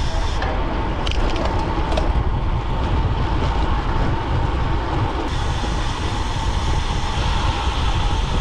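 Wind buffeting the camera microphone as a road bike coasts downhill, a steady rumble mixed with tyre noise on the asphalt.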